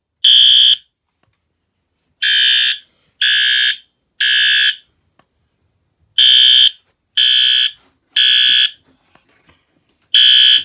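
System Sensor fire alarm horn sounding the temporal-3 evacuation pattern: loud beeps of about half a second, in groups of three separated by pauses of about a second and a half.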